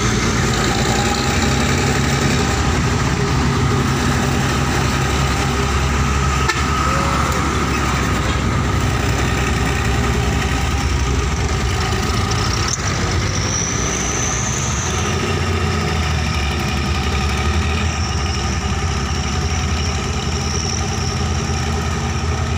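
Diesel engines of heavy cargo trucks running steadily close by, a low rumble with a faint high whine that comes and goes. There are two brief clicks, about 6 and 13 seconds in.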